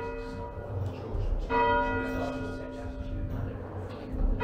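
A single church bell rung by rope, striking at an even pace about every two and a half seconds. One stroke comes about a second and a half in and the next at the very end, and each rings on and fades, heard from the ringing chamber below the bell.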